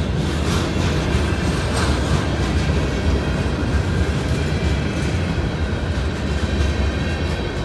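Freight cars (covered hoppers and flatcars) rolling steadily past at a level crossing: a continuous heavy rumble of wheels on rail, with occasional clacks as wheels pass over joints.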